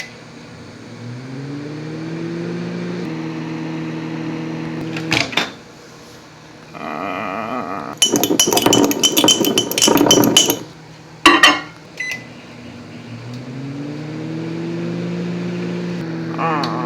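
Microwave oven running with a steady hum that rises in pitch as it starts, then stops with a click. Next comes a couple of seconds of rapid clinking and scraping of a fork against a glass mason jar as the eggs are stirred, and a clank. The microwave then starts and runs again, ending with a click.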